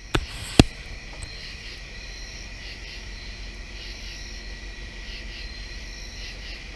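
Night chorus of crickets and other insects: a steady, pulsing high trill. Two sharp clicks come in the first second, the second the loudest.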